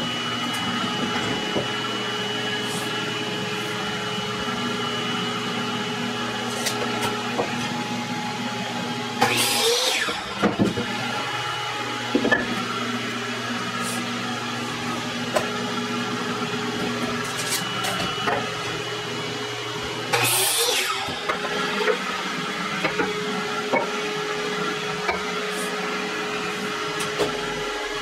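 Wooden square stock being handled and positioned at a miter saw, with scattered clicks and knocks over a steady machine hum. Two short, loud rasping bursts come about a third and two-thirds of the way through.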